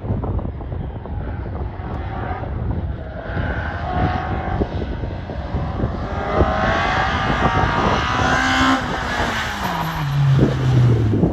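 Renault Clio 172 rally car's four-cylinder engine running hard, its pitch climbing through the middle and then dropping steeply near the end, over a heavy rumbling noise.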